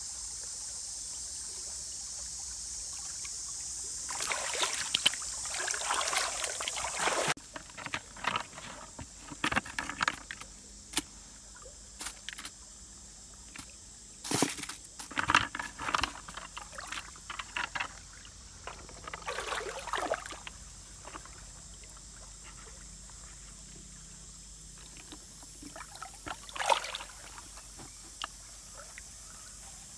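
Shallow stream water trickling, with irregular close-up rustles, knocks and small splashes from handling at the water's edge.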